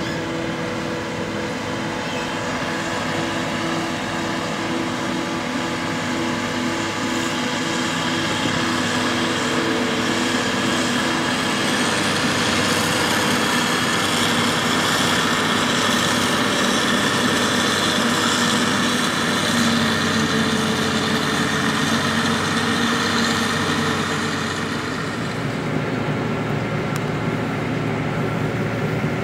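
Claas Jaguar 870 self-propelled forage harvester running under load as it chops standing maize with its six-row header: a steady, loud machine drone with several held engine tones. It grows louder toward the middle and eases a little near the end.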